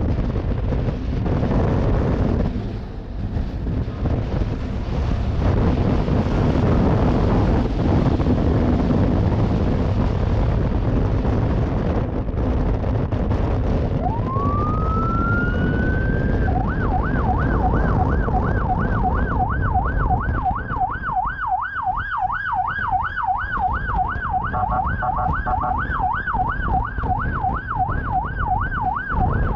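Wind rushing over the microphone with road and engine noise, then about halfway through a police siren winds up in one rising sweep and switches to a fast yelp that runs on.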